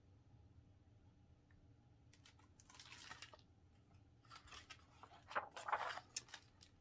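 A glossy page of a hardcover picture book being handled and turned, giving a couple of stretches of soft paper rustling and sliding, starting about two seconds in, over a faint low hum.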